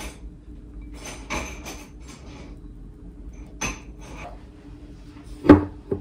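Light taps of a small mesh sieve dusting powdered sugar over pancakes, then a loud knock of a ceramic plate on a tabletop near the end, with a smaller knock just after.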